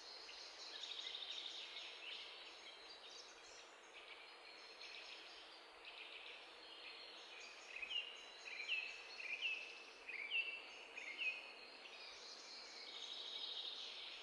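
Faint birdsong: high twittering and trills, with a run of short, quickly falling chirps in the middle.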